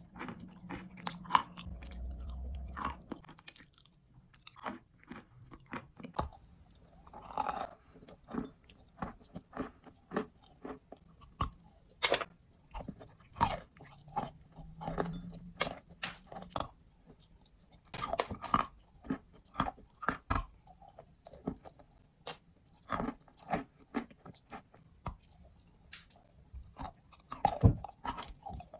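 A person biting and chewing chunks of chalk: irregular sharp crunches, some in quick runs, with quieter chewing between them.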